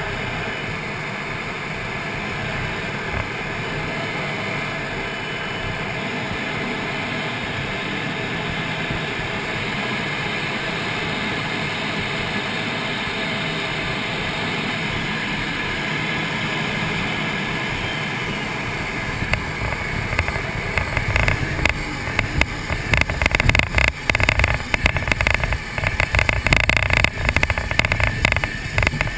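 Cockpit noise of a MiG-29UB jet on landing: a steady hiss of engine and airflow on the approach. About two-thirds of the way through, touchdown on the runway turns it into a louder, uneven rumble as the jet rolls out.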